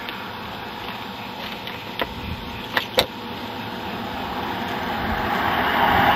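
A vehicle approaching on the highway, its tyre and road noise swelling steadily over the last couple of seconds. A few sharp clicks come between about two and three seconds in.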